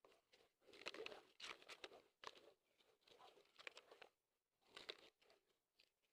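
Dry mud crunching and crumbling as it is crushed: faint, crisp crackles in short clusters every half second or so, with a brief lull about two-thirds of the way through.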